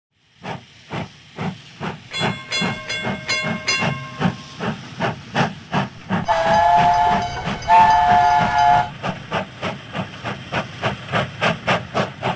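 Steam locomotive chuffing in an even beat of about two to three strokes a second, with its whistle sounding in the middle.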